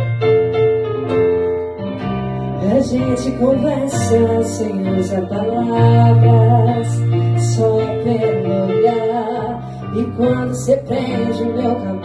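A woman singing into a microphone over live Korg keyboard accompaniment, with sustained bass notes and a steady beat.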